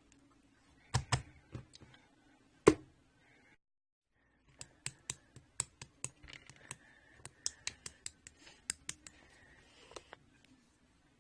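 Irregular sharp clicks and taps, like typing, sparse at first and then coming quickly, with a short dead-silent break about three and a half seconds in.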